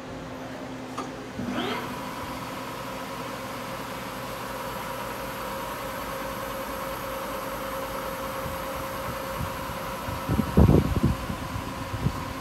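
Doosan Puma 400MB CNC lathe running with its spindle turning, a steady mechanical whine over a machine hum. About a second and a half in, a brief rising whine settles into a steady higher tone. Near the end comes a cluster of low thumps, the loudest sound.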